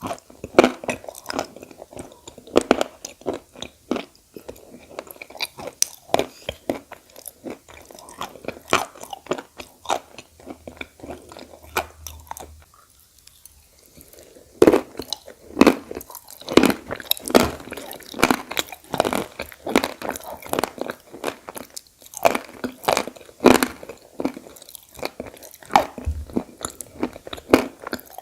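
A person biting and chewing pieces of edible khawa clay, with sharp, irregular crunches. It eases off briefly about halfway through, then comes back in a dense run of loud crunches.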